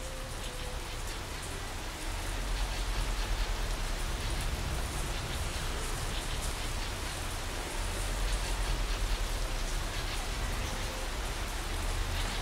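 Steady rain falling, with many small drop ticks, over a low rumble that grows louder about two seconds in.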